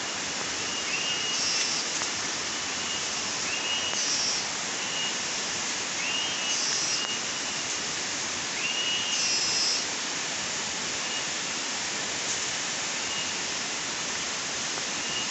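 Tropical forest ambience: a steady hiss, with a bird's short, slightly rising call repeated every couple of seconds.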